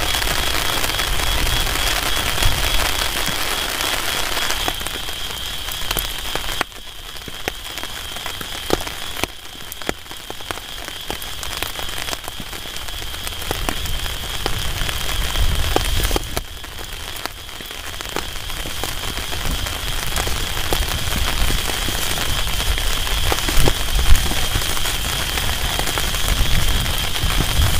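Steady heavy rain falling on a tarp shelter and the surrounding grass and leaves, with single drops ticking sharply through the hiss. A thin, steady high whine runs under it, and the rain is quieter for a stretch in the middle.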